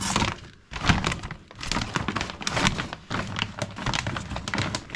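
A busy run of small knocks, clicks and rustles: objects being handled and moved about.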